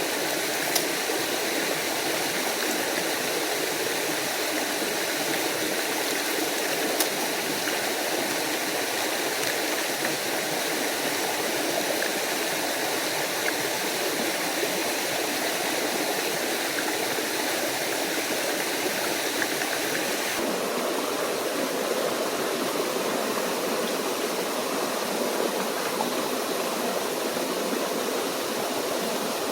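Steady rushing and splashing of water from a small forest waterfall and stream. Two sharp clicks stand out briefly, one near the start and one about seven seconds in, and the water's tone shifts slightly about two-thirds of the way through.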